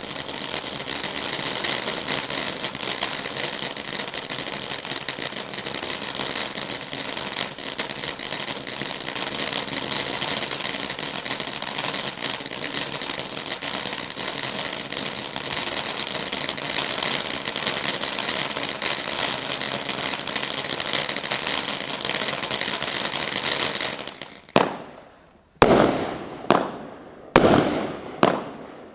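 Firework battery with a built-in fountain: the fountain hisses steadily for about 24 seconds and then dies away. The battery's shots then fire one after another, about one a second, each a sharp bang that fades off.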